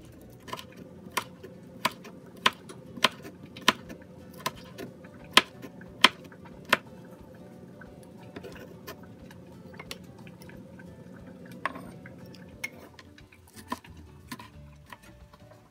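Kitchen knife slicing chili peppers on a cutting board: about ten sharp taps at an even pace, roughly one every half second, then a few scattered taps later on.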